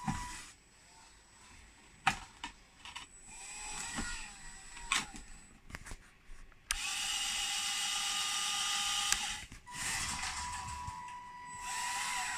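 Small electric motors on a radio-controlled model excavator. A few clicks and short whirs come first, then a steady whir of about two and a half seconds starts suddenly about seven seconds in. Shorter whirs follow around ten seconds in and near the end.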